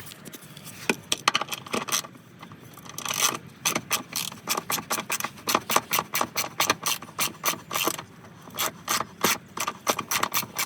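Hand socket ratchet clicking in quick runs with short pauses as it backs out a 10 mm bolt on the car's underbody panel.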